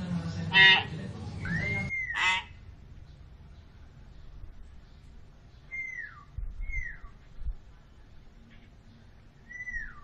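Common hill myna calling: two loud harsh shrieks with an arching whistle between them in the first two and a half seconds. Then come three short whistles that fall in pitch, spaced a second or more apart, the last one near the end.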